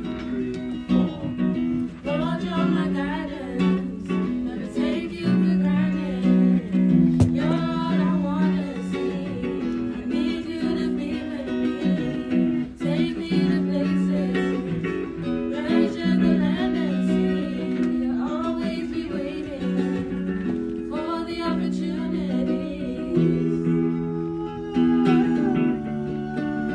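Voices singing a hymn to acoustic guitar accompaniment, the guitar chords changing every second or two under the sung melody.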